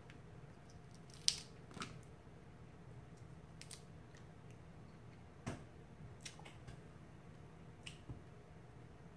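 Cooked crab leg shells being cracked and snapped apart by hand: scattered short, sharp cracks and clicks, the loudest about a second in, over a faint steady hum.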